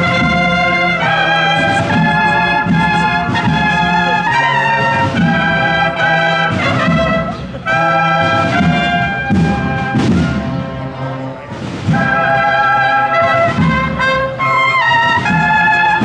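Brass band playing, trumpets carrying a melody of held notes over a sustained low note.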